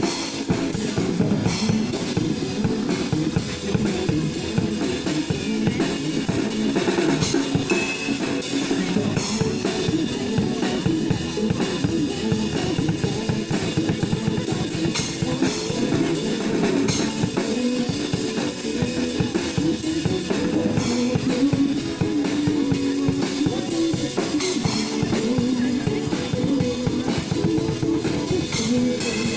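Mandopop song with a full band backing: drum kit with kick drum, and guitar, playing at a steady beat.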